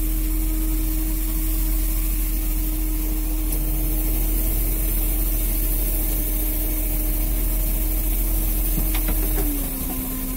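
A small fishing boat's engine running steadily. Near the end its pitch drops a little and it gets slightly quieter, as if eased off.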